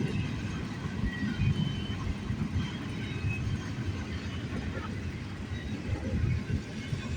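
Low, steady rumble of a passing freight train, with faint high squeals from the wheels.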